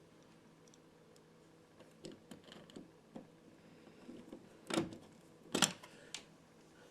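Screwdriver clicking and scratching against a switch-plate screw that won't start, a scatter of small clicks with two louder scrapes about five seconds in.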